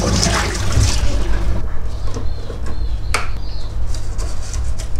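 Tap water running into a stainless steel bowl as rice is rinsed, stopping about a second and a half in. A steady low hum runs underneath, and there is one sharp click about three seconds in.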